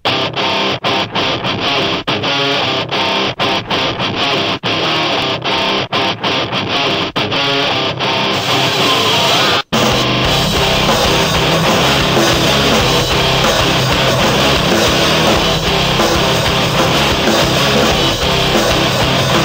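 Background rock music with electric guitar. It is choppy at first, stopping and starting with short breaks, cuts out for a moment about halfway through, then runs on fuller and unbroken.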